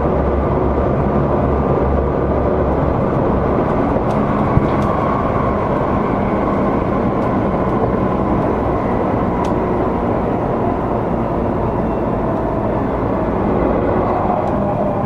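Seibu 20000 series electric train running at steady speed: a continuous rumble of wheels and running gear with a low hum and faint tonal whine, and a few light ticks about four to five seconds in and again near ten seconds.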